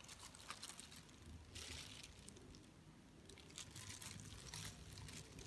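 Faint rustling and soft pattering of shredded green mango dropped by hand onto cut rice paper strips, in a few small bursts.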